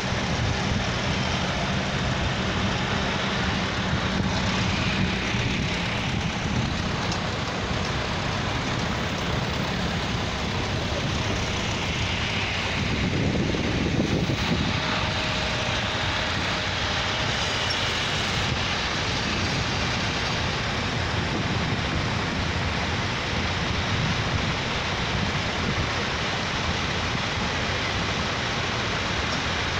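A procession of vintage tractors, among them grey Ferguson and red Massey Ferguson tractors, driving past with their engines running steadily; one passes close by about 13 seconds in, its sound rising and falling.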